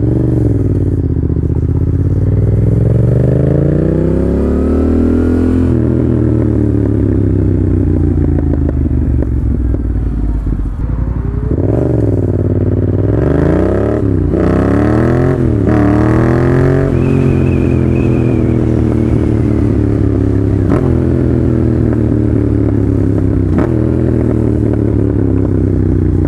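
Yamaha FZ-07's parallel-twin engine through a Leo Vince full exhaust while riding, very loud. The revs climb and fall through the gears, with a run of quick rev blips about halfway through and a long steady drop in revs near the end.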